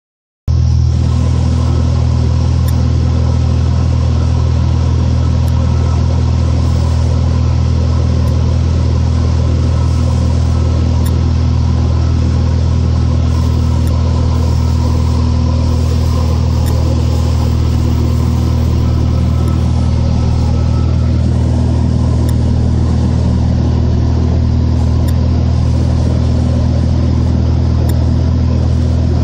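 Cessna 182's piston engine and propeller droning in flight, heard from inside the cabin, with a hiss of airflow over it. The drone comes in abruptly about half a second in and then holds at a steady, unchanging pitch.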